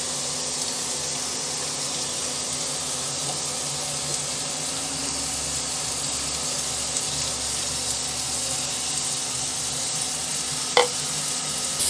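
Steady sizzling hiss of groundnut oil heating in a non-stick kadai, with one sharp click near the end.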